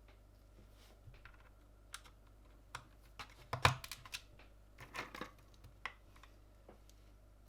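Irregular clicks and clacks on a Gamakay LK67 mechanical keyboard with Gateron red linear switches, about a dozen sharp taps at uneven intervals. The loudest group comes about three and a half seconds in.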